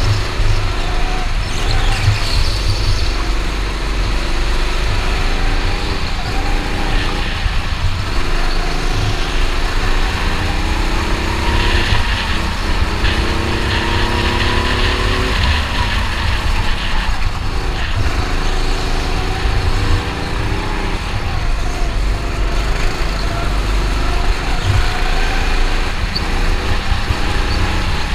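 Go-kart engine heard from the driver's seat, its pitch rising and dropping back every couple of seconds as the kart speeds up and slows. A heavy low rumble from the kart's vibration and wind on the camera runs underneath.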